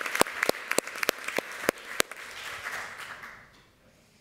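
Audience applauding, with loud single claps close to the microphone, about three a second, over the crowd's clapping. The applause dies away about three seconds in.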